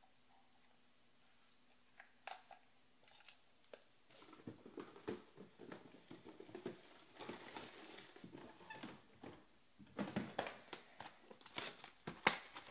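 Hands handling a cardboard trading-card hobby box: faint, irregular taps, scrapes and rustles that start about four seconds in and get louder near the end, after a few seconds of near silence with a faint hum.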